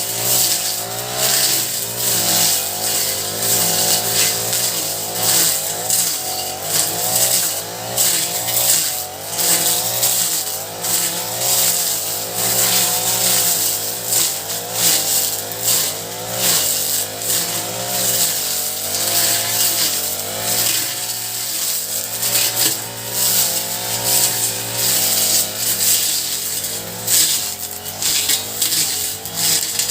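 Honda four-stroke brush cutter engine running fast and continuously, its pitch wavering up and down.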